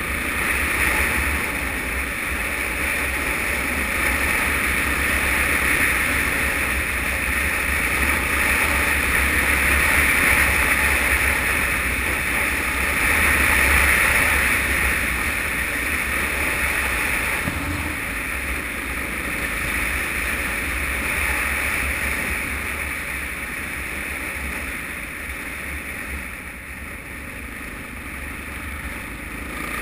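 Suzuki DR-Z single-cylinder motorcycle under way, heard from a helmet-mounted camera as a steady rush of wind noise over the engine's low rumble, growing somewhat quieter near the end.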